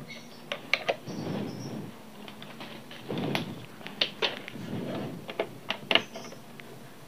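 Irregular plastic clicks and light knocks of hands handling a portable Bluetooth speaker and plugging a charging cable into its top control panel. The loudest click comes about six seconds in.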